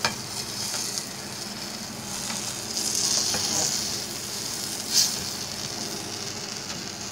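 Burger bun and fillings sizzling steadily as they toast in a hot nonstick frying pan, the sizzle swelling for a moment about three seconds in. A sharp click about five seconds in.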